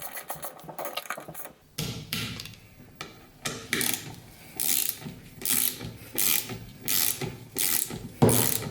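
Ratcheting torque wrench turning small stainless bolts on a fork's booster: a fast run of ratchet clicks, then short ratcheting strokes about once a second.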